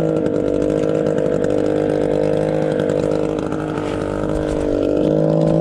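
Boat engine running steadily, its pitch and level sagging a little about three and a half seconds in and picking back up near the end.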